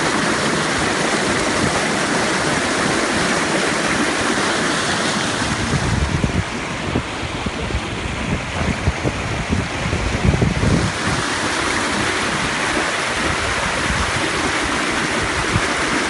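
Mountain stream rushing over granite boulders: a steady, loud hiss of whitewater. For a few seconds in the middle the hiss turns duller and uneven low buffeting rumbles come through.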